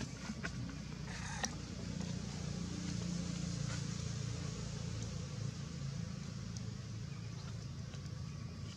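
Low steady rumble of a distant motor vehicle engine, swelling a little around the middle, with a few faint clicks in the first second and a half.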